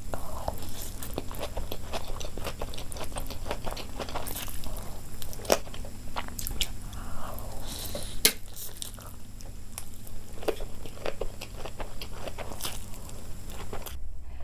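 A person chewing and biting food close to the microphone, with irregular crunches and clicks throughout.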